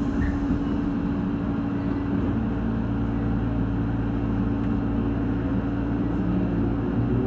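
Electric commuter train moving off slowly, heard from inside the driver's cab: a steady low rumble and hum, with a rising whine starting near the end as it gathers speed.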